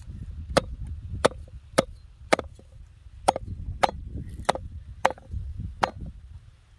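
A cleaver chopping a peeled sugarcane stalk into chunks on a wooden cutting board: nine sharp chops, roughly one every half second to second, with a slightly longer gap near the middle.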